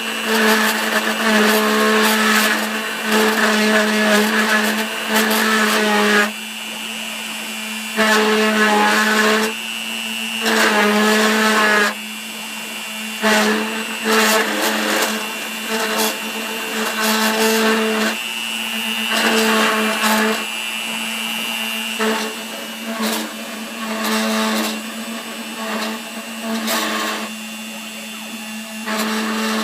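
CNC router spindle running with a steady whine while the cutter bites into aluminum in repeated passes. Each pass adds a harsh, screeching tone over the spindle and lasts from about a second to several seconds, with short lulls between. The cutting runs at a feed rate its owner wants slowed.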